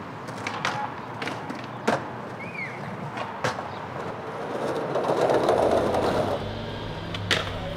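Skateboard wheels rolling on concrete, with sharp clacks and knocks scattered through as the board hits cracks and edges. About five seconds in, a rushing noise swells up and fades out again about a second later.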